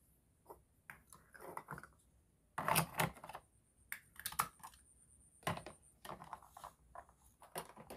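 Hard plastic toy food pieces (ice cream scoops, cones and a plastic scooper) clicking and knocking together as they are handled, an irregular scatter of light taps and clacks, loudest around three seconds in.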